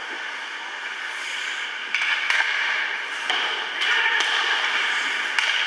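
Ice hockey play: several sharp clacks of sticks and puck over steady rink noise.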